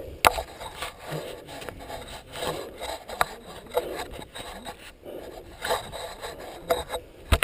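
Mountain bike rolling down a dirt trail, heard from a helmet camera: a rough, scraping noise of knobby tyres on loose dirt and leaf litter, with sharp knocks and rattles from the bike, one loud knock near the end.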